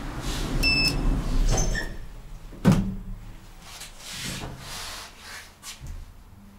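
SMW elevator car doors sliding shut with a low rumble and a few short electronic beeps, closing with one loud clunk nearly three seconds in.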